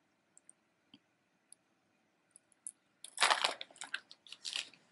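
Near silence with a few faint ticks, then about three seconds in a plastic bag crinkles in two short bursts as it is handled.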